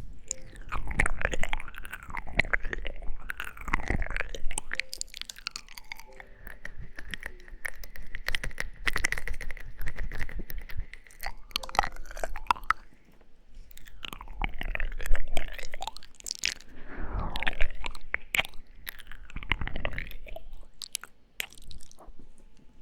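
Close-miked ASMR mouth sounds: wet lip smacks, tongue clicks and kisses, coming in swells every couple of seconds.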